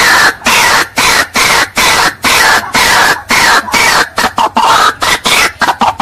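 White-breasted waterhen calling: a loud series of harsh, croaking 'wak' notes, about two a second, coming faster and choppier near the end.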